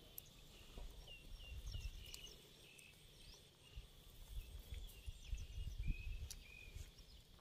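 Faint bird calls: runs of short, quick chirps about a second in and again around five to six seconds, over a low, uneven rumble.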